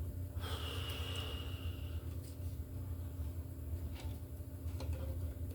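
A person breathing out hard through the nose for about a second and a half, followed by a few light clicks of handling, over a steady low hum.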